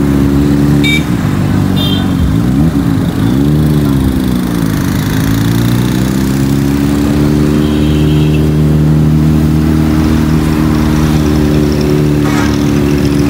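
Motorcycle engine running on the move, its pitch dipping and rising a couple of times about two to five seconds in as the revs change, then holding steady.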